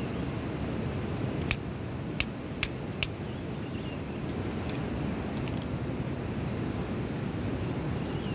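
A steady low rumble of background noise, with four short sharp clicks or snaps about a second and a half to three seconds in.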